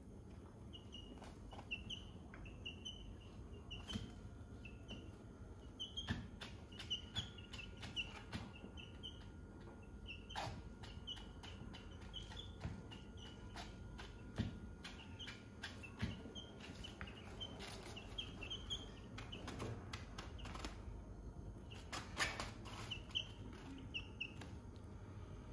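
Young white chickens peeping softly: short high cheeps repeated through the whole stretch, with scattered light taps and rustles as the birds peck and move about on the bedding.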